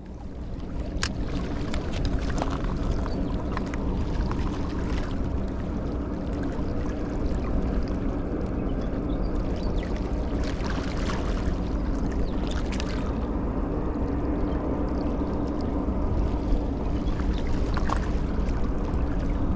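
Harbour shore ambience: a steady low rumble with a constant drone, and small waves lapping against the rocks, with a few faint clicks.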